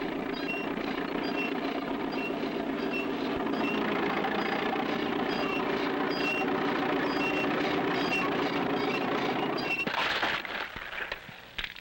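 Road roller engine running steadily, with a short high squeak repeating about twice a second over it. About ten seconds in, a brief noisy crash, after which the sound falls away.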